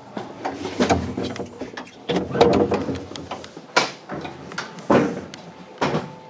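Sliding gangway doors between the cars of a 227-series electric train being pulled open and sliding shut, with about half a dozen sharp knocks and bangs of the door panels.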